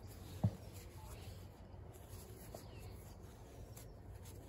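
Faint handling sounds of crocheting with thick t-shirt yarn, with one soft thump about half a second in.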